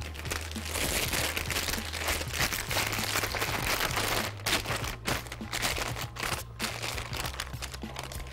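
Clear plastic piping bag being handled and opened, crinkling with irregular crackles over a low steady hum.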